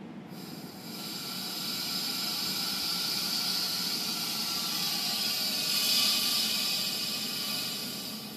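Pressure of about 35 bar being vented through the exhaust valve of a pneumatic pressure comparator: a steady hiss of escaping gas that swells, is loudest about six seconds in, then dies away near the end as the pressure drops.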